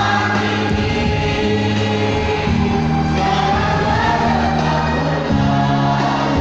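Choir singing a sustained, slow passage with accompaniment, the low notes changing every second or so.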